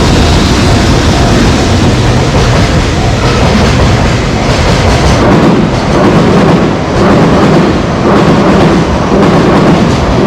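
Freight train passing close by through a level crossing: a loud continuous rumble of wheels on rail, with a rhythmic clatter of wheelsets over rail joints about once a second in the second half.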